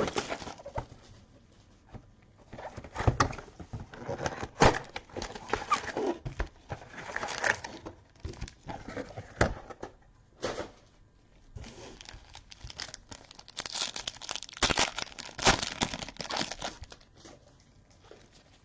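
Plastic wrapping and card pack wrappers crinkling and tearing in irregular bursts, with sharp clicks in between, as a sealed box of football trading cards and its packs are opened.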